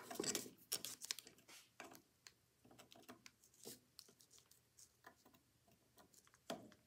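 Faint metal clicks and scrapes of a screwdriver tip being worked into the slot of the brass nut on a phonograph's ratchet pawl, busiest in the first couple of seconds and sparser after.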